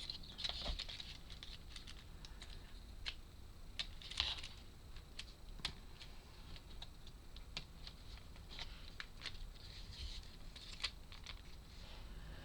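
Small irregular clicks and taps of laser-cut wooden puzzle parts being handled and pushed into place.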